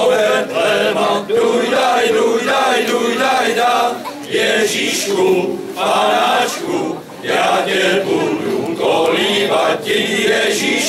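Men's choir singing a Christmas carol together, several sustained male voices in harmony.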